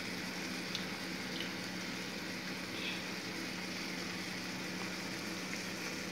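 Chicken roast simmering and sizzling in a pan of thick gravy: a steady hiss with a few small pops.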